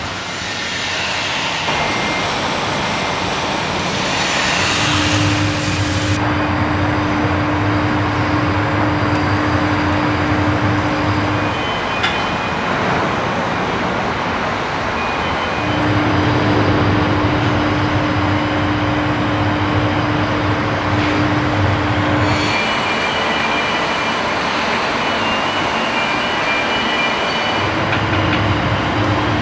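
Industrial noise of a shipyard building hall: a steady wash of machinery noise with a motor hum that starts and stops three times, each run lasting several seconds.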